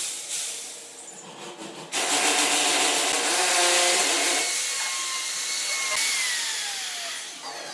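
Handheld electric router cutting grooves into a hardwood stair tread: a loud cutting noise with a high motor whine. About six seconds in, the whine falls in pitch as the motor winds down.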